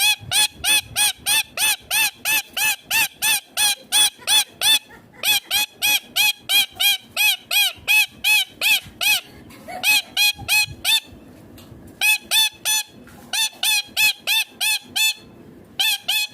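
Indian ringneck parakeet calling: a rapid series of short, sharp screeches, about four or five a second, in runs broken by brief pauses.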